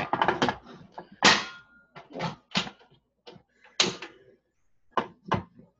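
Irregular clanks and knocks of a saucepan with a glass lid being set down and shifted on the metal grate of a portable gas stove, with one brief metallic ring early on.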